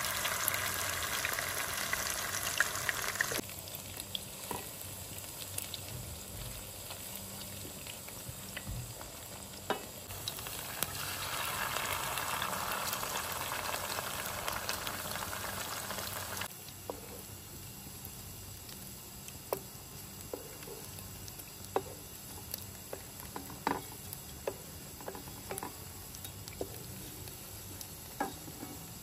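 Cutlets sizzling as they shallow-fry in hot oil in a pan. The sizzle is louder for the first few seconds and again in the middle, then quieter, with scattered light clicks and taps in the last stretch.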